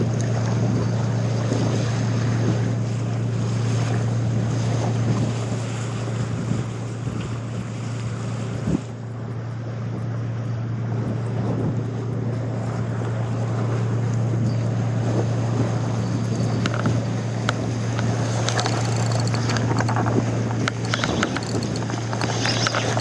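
A boat's engine running at a steady low hum, with wind and water noise over it. The sound drops a little for a moment near the middle, and a scatter of short clicks and knocks comes near the end.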